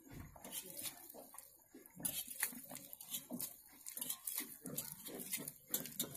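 Milk squirting in jets into a small steel pot during hand milking of a cow, a quick run of about two to three squirts a second that gets louder about two seconds in.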